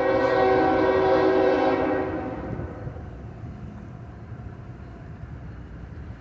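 Air horn of a GE ES44AH freight locomotive sounding a chord of several notes, fading away about two and a half seconds in, then the low rumble of covered hopper cars rolling past on the rails.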